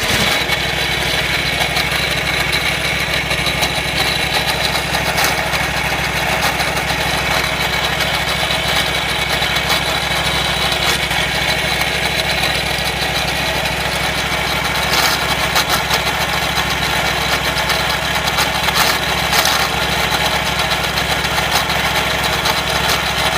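Wright Stander stand-on mower's engine running steadily with a constant high-pitched whine over the engine drone. The owner suspects a worn drive belt or bad idler pulley bearings.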